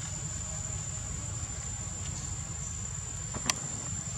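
Insects droning as a single steady high-pitched whine, over a low rumble, with one sharp click about three and a half seconds in.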